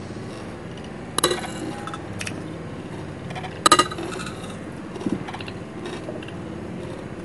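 Metal spoon and fork clinking against a plate while eating. Two sharp ringing clinks come about a second in and near four seconds in, with lighter taps between.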